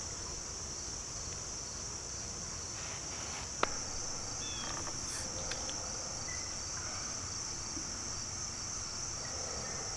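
Steady high-pitched insect chorus, a continuous chirring that does not let up, with a single sharp click about a third of the way through.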